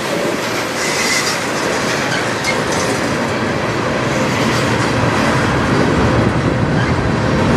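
Cars of a slow CN manifest freight train rolling past: a steady rumble of steel wheels on rail, with a brief high wheel squeal about a second in.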